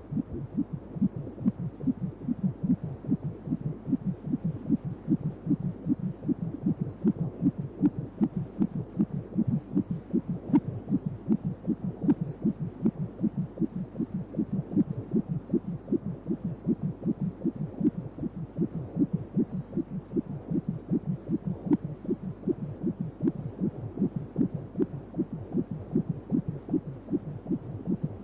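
Unborn baby's heartbeat picked up by ultrasound Doppler during a pregnancy scan: a fast, steady pulse of a little over two beats a second.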